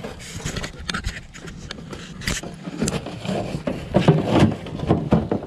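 Shovel blade scraping along the bottom of a steel drum burner and scooping hot charcoal, with repeated clinks and knocks of the blade and charcoal on the metal.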